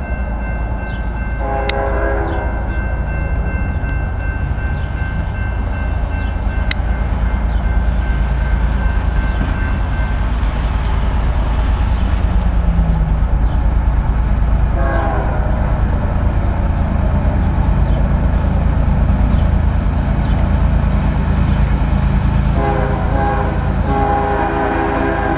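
Diesel freight train horn sounding as the CSX train approaches a grade crossing: a short blast about two seconds in, another about fifteen seconds in, and a longer one near the end, over a steady low rumble.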